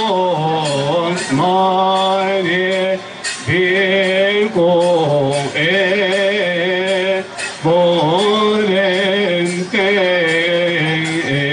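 A man's voice singing a slow, melismatic Coptic church hymn, its long notes winding up and down. Short sharp strikes of percussion sound along with it.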